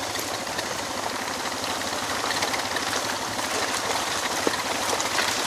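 Suzuki DR650 single-cylinder engine running while riding, under a steady rushing noise with scattered small ticks.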